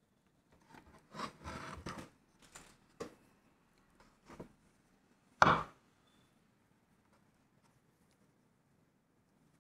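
Wooden owl plaque being handled on a wooden tabletop while jute twine is threaded through it: a scraping rub and soft knocks over the first two seconds, sharper knocks at about three and four seconds, and one louder wooden knock about five and a half seconds in.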